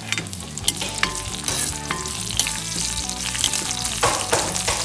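Green chillies, fennel and cumin seeds sizzling in hot oil in an iron kadai. A steel spoon stirs them with several sharp clinks and scrapes against the pan, and the hiss swells near the end.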